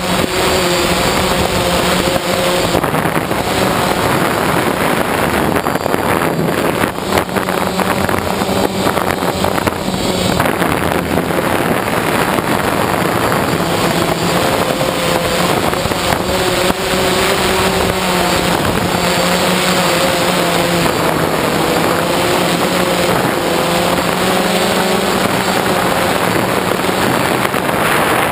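DJI Phantom quadcopter's electric motors and propellers whirring in flight, heard up close from the camera mounted on the drone itself. The pitch of the hum drifts up and down as the throttle changes.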